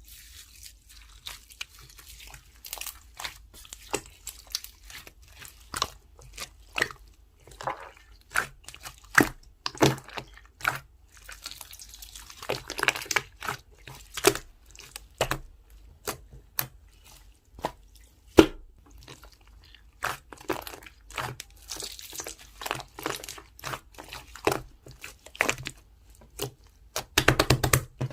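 Green pearl slime with mixed-in bits being squished and pressed by hand, giving irregular wet clicks, pops and crackles, with denser crackling stretches now and then.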